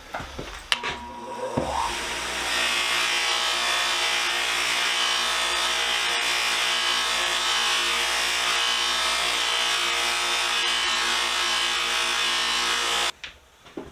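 A small electric power tool working the wooden handle: its motor comes up to speed over the first couple of seconds, runs steadily, and is switched off abruptly near the end.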